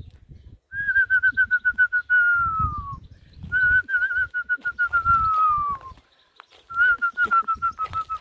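Three long whistled calls, each a quick warble that then slides down in pitch: a pigeon fancier whistling to call returning racing pigeons down into the loft.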